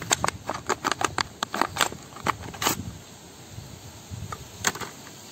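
Clear plastic blister pack crackling and clicking as a chisel is pulled out of it: a quick run of clicks over the first few seconds, then a few more near the end.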